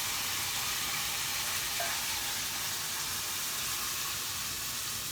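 Seasonings and hot sauce sizzling as they fry in a pot on the stove: a steady hiss.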